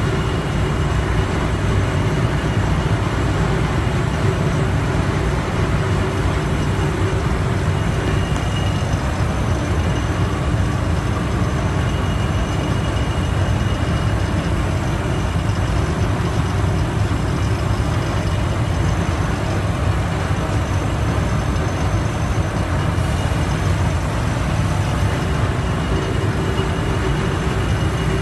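Steady, loud machinery drone of refrigeration condensing units and fans running, with a faint steady whine above the hum.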